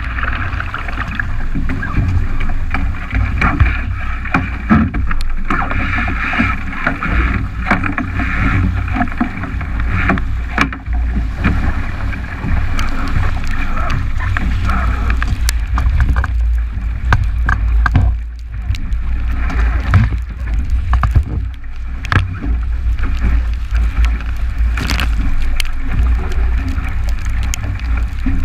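Strong wind buffeting the microphone of a camera mounted on a 29er skiff planing fast through chop, over a steady rush and splash of water along the hull, with scattered short knocks.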